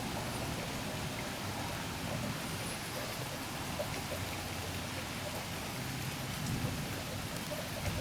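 Steady rain falling during a thunderstorm: an even hiss with scattered small drop ticks and no thunderclap.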